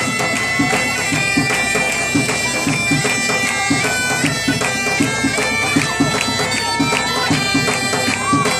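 Bagpipes playing a lively dance tune over their steady drones, with a steady low beat underneath.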